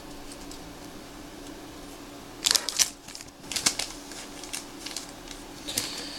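Trading cards and a pack wrapper being handled: a cluster of loud crinkles and clicks about two and a half seconds in, a few smaller clicks after, over a faint steady hum.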